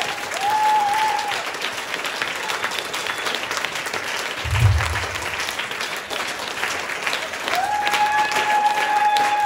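Audience applauding, with many hands clapping. A high steady held tone sounds briefly near the start and again for the last couple of seconds, and a single low thump comes about halfway through.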